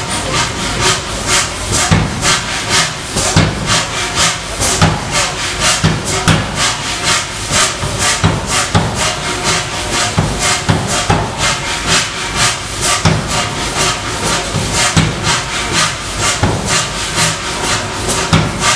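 Large air power hammer striking a red-hot steel bar in a steady run of rapid blows, about two to three a second.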